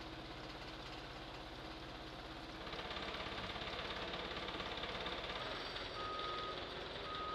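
Engine of the lifting machine running steadily as it hoists the tank turret on chains, louder from about two and a half seconds in. A warning beeper sounds twice near the end.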